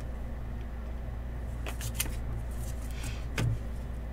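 Trading cards being handled and laid on a tabletop: a few light clicks and a soft knock about three and a half seconds in, over a steady low hum.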